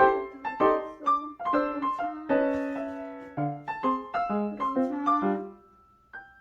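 Background music: a light melody of separate struck notes, each fading away, that dies down briefly near the end.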